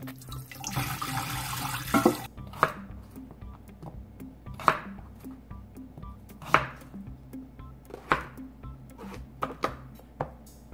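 Water splashing as a carrot is rinsed in a bowl of water, then a kitchen knife slicing carrot and king oyster mushroom on a plastic cutting board, a crisp knock with each cut every second or two.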